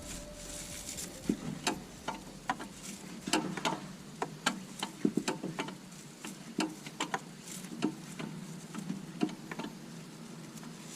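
Irregular light clicks and taps of hand tools and metal parts being handled, a few each second, some with a brief ring.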